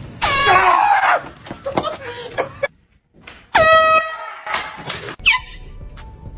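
An air horn gives a loud, short blare about halfway through. Voices yell and shout around it.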